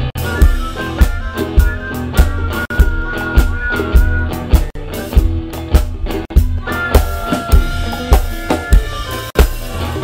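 Live rock band playing an instrumental passage on electric guitar, bass guitar, keyboard and drum kit, with drum hits keeping a steady beat about twice a second.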